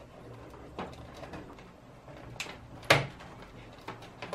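Plastic clicks and knocks from a 24-pin ATX power cable being handled and pushed into its motherboard socket: a few small taps and one louder click about three seconds in.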